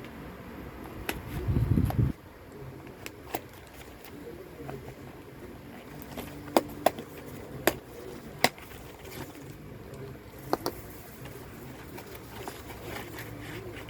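Hands handling a pack of Gillette Vector razor blade refill cartridges. There is a short, low, muffled burst near the start, then a run of sharp single clicks, most of them between about six and nine seconds in.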